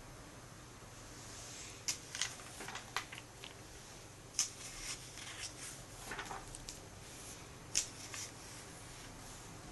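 The paper pages of a comic book being turned by hand, with several sharp crackles and swishes of the paper, starting about two seconds in.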